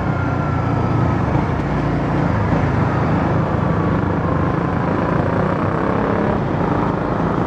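Motorcycle riding noise picked up by a mic inside the rider's helmet: steady wind rush and road noise over the engine's hum, its pitch drifting slightly.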